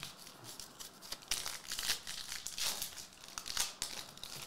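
Foil wrapper of a Topps Chrome Formula 1 trading card pack crinkling and tearing as it is ripped open by hand, in a string of irregular crackles.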